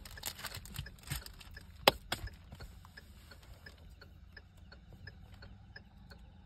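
Handling noises of a small item and a glass whisky bottle: crinkling and clicks, with one sharp click about two seconds in. After that comes a faint, regular ticking, about three ticks a second.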